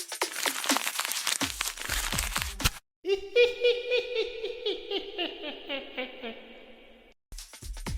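Paper crinkling and rustling, many quick crackles, for about the first three seconds. After a short gap comes a cartoonish pitched sound effect of quick wobbling notes that fades away.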